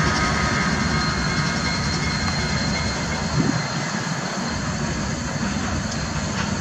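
Diesel locomotives hauling an empty coal train running along the track: a steady engine rumble and rail noise, easing off slightly toward the end.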